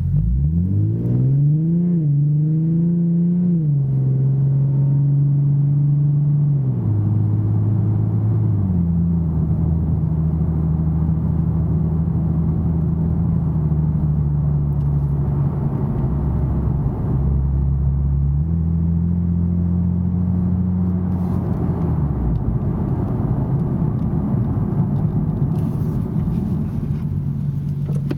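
2009 Nissan 370Z's 3.7-litre V6, heard from inside the cabin through a Fast Intentions exhaust with 18-inch carbon-fibre resonators and non-resonated high-flow cats. The car pulls away with the engine note rising and stepping through several automatic gear changes in the first nine seconds or so. It then cruises at low revs on a steady low note with small rises and dips.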